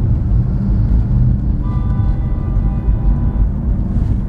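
A car horn sounding one steady blast of about two seconds, a little over a second in, over the low rumble of road noise inside a moving car.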